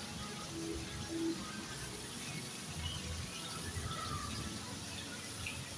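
Steady outdoor background noise with a few faint bird chirps and faint music.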